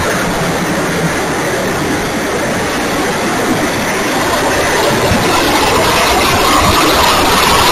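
Electric motor and propeller of an Opterra RC flying wing running in flight, heard through the onboard camera's microphone with rushing air noise. The sound grows louder near the end.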